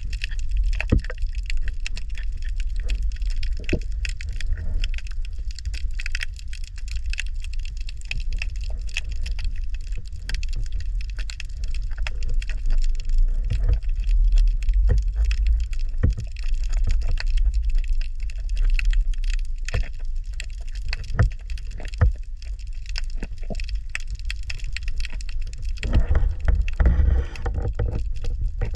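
Dense crackling of many small sharp clicks over a steady low rumble, with a brief louder rush about twenty-six seconds in.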